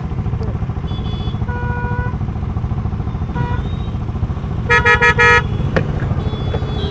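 Vehicle horns honking in traffic over a motorcycle's steady engine and wind rumble while riding. There is a short honk about a second in and two louder honks in quick succession about five seconds in.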